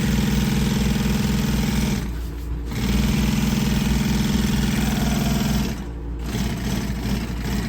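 Industrial walking-foot upholstery sewing machine stitching at a steady fast speed in two runs, stopping briefly about two seconds in and again near six seconds.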